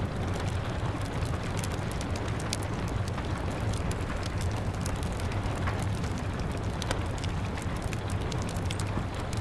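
Steady rain over a wood fire crackling, with many small sharp pops scattered over a low steady rumble.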